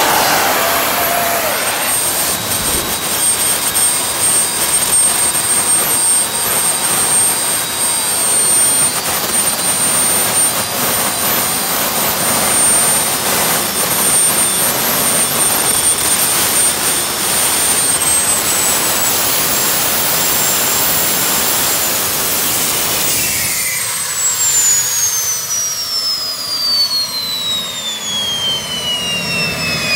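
DIY gas turbine jet engine on a go-kart running at full power, reaching 3.5 bar of boost: a loud roar with a steady high whine. About 22 seconds in it is shut down, the roar drops away and the whine falls steadily in pitch as the turbine spools down.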